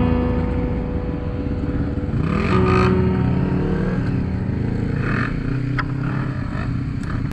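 Quad bike (ATV) engine running, the revs rising and falling.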